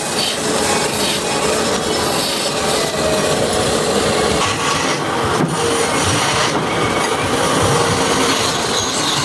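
A tool scraping and rubbing against wood in continuous strokes while a small wooden stool is shaped.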